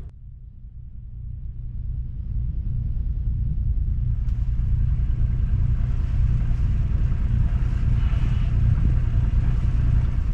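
Low steady rumble of a sailboat's inboard engine running as the boat motors along, getting louder over the first two seconds.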